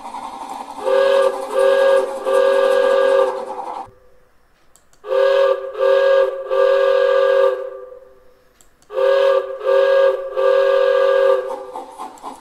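Steam locomotive whistle sounding a chord of two main notes, in three identical groups of two short blasts and one long one, each group about a second apart. A steady rushing hiss runs under the first group.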